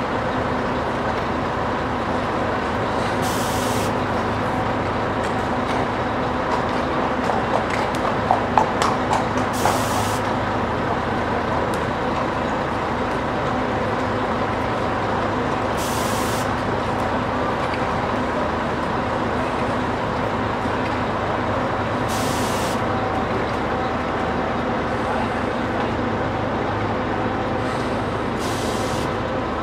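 Steady hum of a running vehicle engine with street noise. A short hiss of air comes about every six seconds, and a brief cluster of knocks sounds about eight to nine seconds in.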